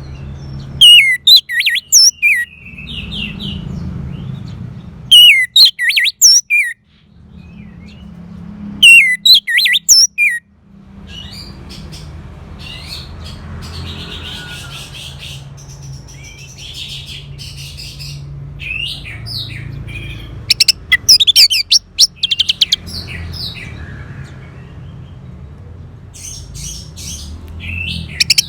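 Orange-headed thrush singing loud phrases of sharp, fast-gliding whistled notes, separated by short pauses, with a denser run of rapid notes about two-thirds of the way through and again at the end. A steady low hum lies under the song.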